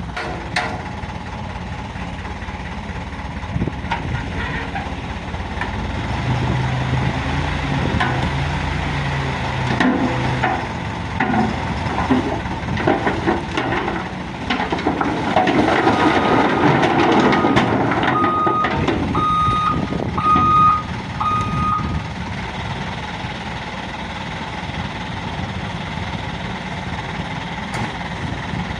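Isuzu dump truck's diesel engine running and revving, loudest around the middle. A reversing alarm sounds a row of short, evenly spaced single-pitch beeps for several seconds past the middle, as the truck backs up.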